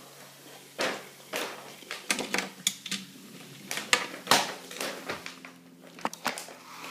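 Irregular light clicks and taps of a die-cast toy car being handled and set down on a glass tabletop.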